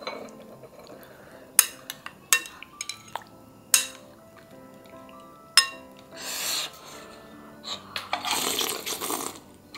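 A metal spoon clinking against a ceramic soup bowl of sujebi, four sharp clinks in the first six seconds, followed by two longer noisy stretches, with soft background music underneath.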